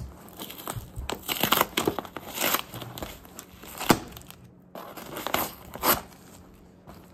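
Cardboard shipping box being pulled open by hand, with flaps scraping and paper or tape crinkling and tearing in irregular bursts, and a sharp snap about four seconds in.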